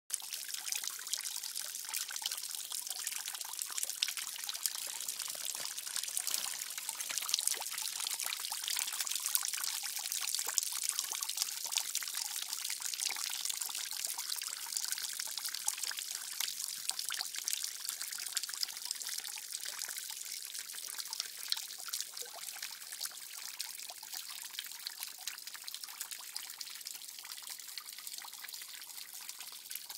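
Water trickling and dripping down a moss-covered rock face: a steady high hiss of running water with many small drip splashes, growing a little quieter near the end.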